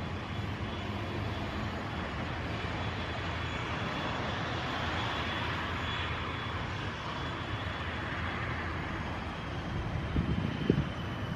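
CFM56 jet engines of a Boeing 737-800 on final approach, a steady distant rushing hum with a faint high whine. Wind buffets the microphone near the end.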